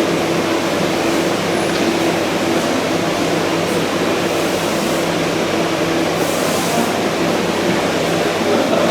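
Steady rushing background noise with a faint low hum running through it.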